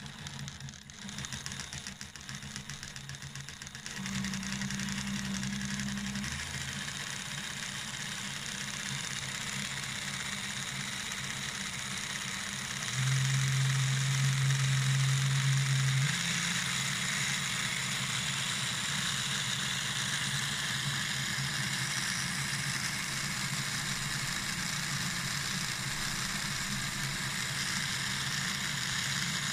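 Lego 12V train locomotive's electric motor running on a test stand, a steady whir from the motor and spinning wheels. It gets louder about four seconds in and again around thirteen seconds, easing back a little around sixteen seconds.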